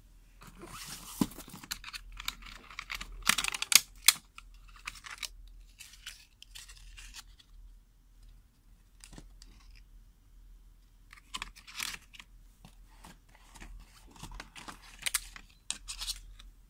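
Clear plastic lash trays and cardboard lash boxes rustling and crinkling as they are handled, with a few sharp clicks. The handling comes in two spells, the first five seconds or so and again from about eleven seconds, with a quieter lull between.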